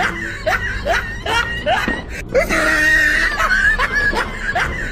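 Looped comic background track: a short phrase of rising, squealing notes with a held high note that repeats about every three seconds.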